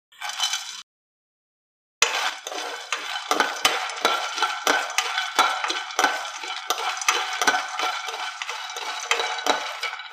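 Peanuts, dry red chillies, garlic and cumin being stirred around a dry nonstick pan with a spatula: a steady rattle and scrape of nuts against the pan, with many small clicks. A brief rattle at the very start is black peppercorns tipped from a spoon into the pan.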